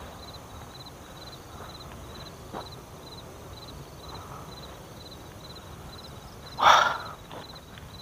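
An insect chirping steadily, about two short high chirps a second. One brief, loud rustling noise stands out just before the seven-second mark.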